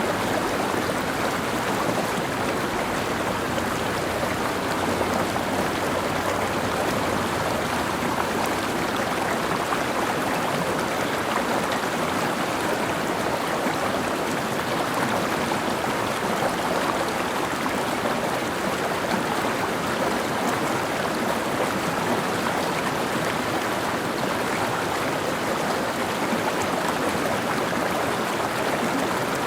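Mountain stream running steadily, water rushing and splashing over rocks.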